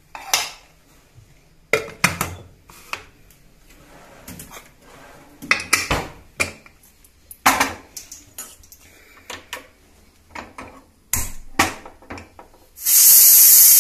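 Aluminium pressure cooker being closed and handled: metallic clicks and knocks as the lid is locked, the weight set on the vent and the cooker put on a gas burner. Near the end a loud, steady hiss of steam starts as the cooker vents under pressure.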